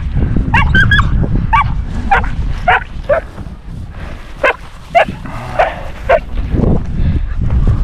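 A dog whining and yipping in short, high calls, about ten of them, coming roughly every half second, over a low rustle.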